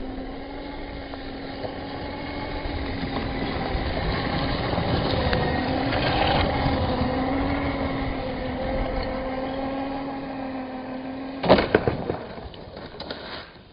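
Redcat Shredder RC monster truck's brushless motor whining at a steady pitch under throttle on a 4S battery, swelling a little midway as it churns through snow. About eleven and a half seconds in there is a loud thud, the whine stops, and only light spattering of snow is left.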